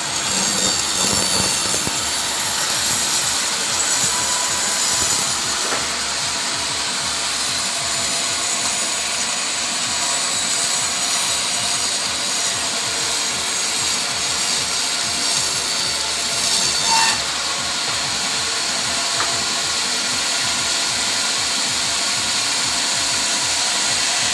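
Sawmill power saw cutting through teak timber: a steady, continuous sawing noise, briefly louder about two-thirds of the way through.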